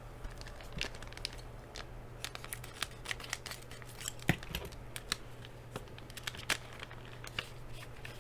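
A foil trading-card pack being opened by hand, its wrapper crinkling and crackling in a run of irregular sharp clicks.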